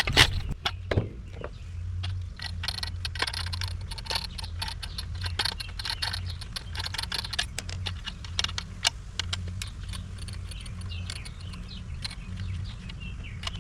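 Juicer parts of metal and plastic being handled and pulled apart by hand: many small clicks and clinks, busiest in the middle, over a steady low hum.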